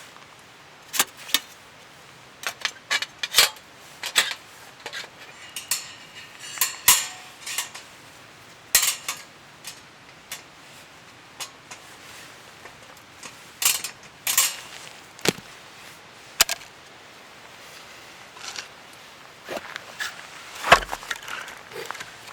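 Camp gear being handled: irregular clinks and knocks of metal cookware and utensils, a few ringing briefly, with the loudest knock near the end.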